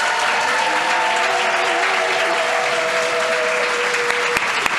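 An audience applauding and cheering loudly as a show of approval, with several long, held vocal cheers over the clapping that die away about four seconds in.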